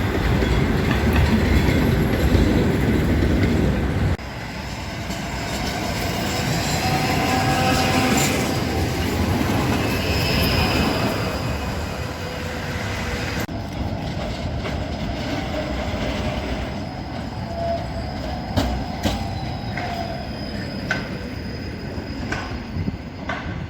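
Trams running on city track: wheels rumbling on the rails, with thin high squealing tones from the wheels and some clicks from the track joints. The sound changes abruptly twice, at about 4 and 13 seconds in.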